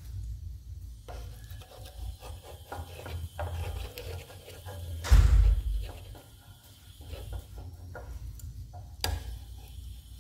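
Wooden spatula scraping and sliding under a fried egg against a frying pan, in short rubbing strokes, with a heavy thump about halfway through and a sharp knock near the end.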